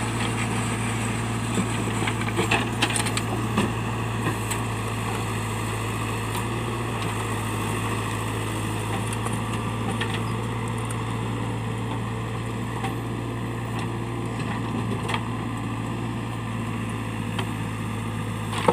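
Diesel engine of a JCB backhoe loader running steadily at work, with a few sharp knocks and clicks over it.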